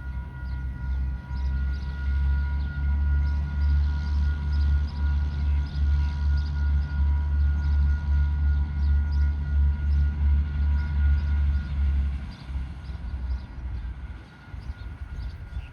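DSG-class diesel-electric shunting locomotive running, with a deep engine rumble and a steady whine over it. The rumble drops away about twelve seconds in.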